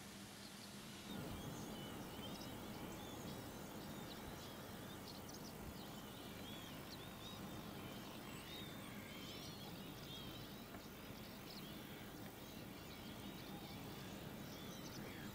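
Small songbirds chirping and twittering faintly over a steady outdoor background hiss, which steps up a little about a second in.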